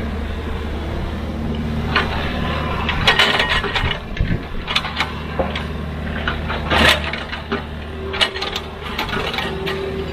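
Excavator's diesel engine running steadily, with scattered sharp clanks and knocks of the digging work, most of them in the middle stretch. A faint steady whine comes in near the end.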